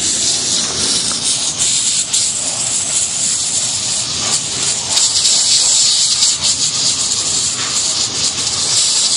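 Steady hiss of a jet of water spraying against a Carlyle 06E compressor's cast body, rinsing off coil cleaner; it grows a little louder for a couple of seconds past the middle.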